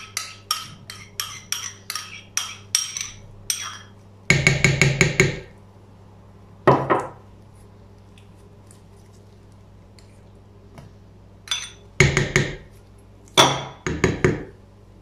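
A metal spoon clinking and scraping against bowls as cream and labneh are scraped out of small ceramic bowls into a stainless steel mixing bowl. A run of light clicks at the start, a quick burst of rapid taps about four seconds in, one more clatter shortly after, then two clusters of taps near the end.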